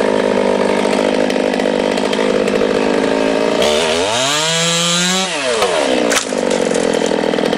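Stihl top-handled chainsaw with an Oregon PowerSharp chain running at high revs, cutting wood. About four seconds in the engine note drops low and climbs back up, then holds steady again.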